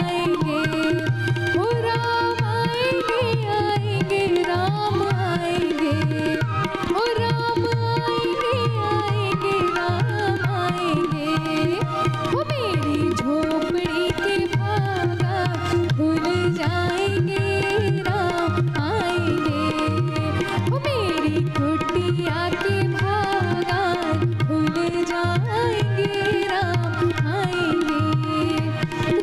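A woman singing a Hindi devotional bhajan in long, ornamented melodic lines, accompanied by tabla and a steady held drone note.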